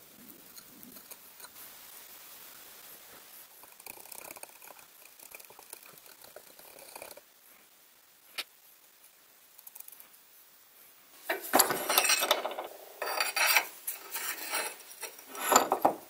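Faint scraping and dabbing of a wooden skewer spreading thick paste over a steel knife blade, with a single click about eight seconds in. From about eleven seconds, loud metallic clinking and rattling as the steel blade is handled against the metal vise.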